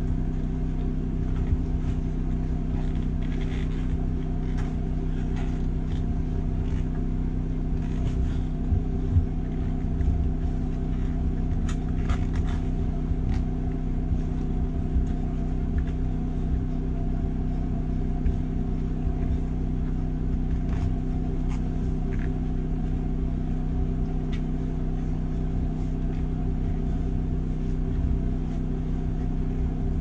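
A steady machine hum with a low rumble, unchanging throughout. Over it, a few faint scuffs and knocks as a rubber ATV tire and inner tube are worked onto a steel rim by hand.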